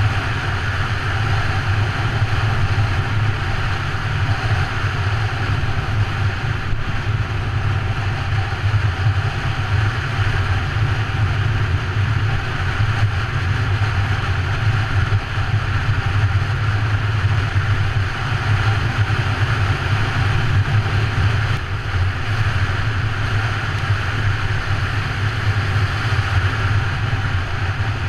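Triumph Tiger motorcycle engine droning at a steady cruising speed on a gravel road, heard from a helmet-mounted camera, with wind noise over the microphone.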